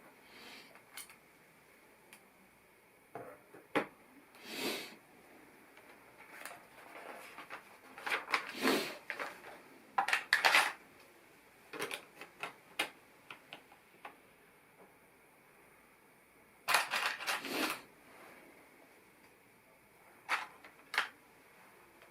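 LEGO plastic pieces clicking and rattling as they are handled and pressed together, with scattered sharp clicks and a few short bursts of quick clatter, the loudest about halfway through and again later on.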